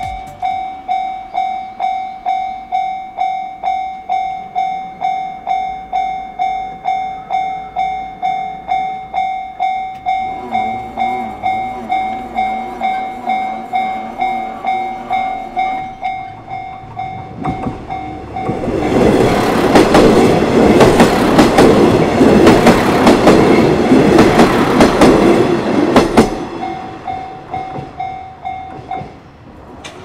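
Japanese level-crossing warning bell ringing steadily at about two strikes a second. A train runs through the crossing, building from a rumble to about seven loud seconds of wheel noise in the second half, drowning the bell. The bell then rings on briefly and stops near the end.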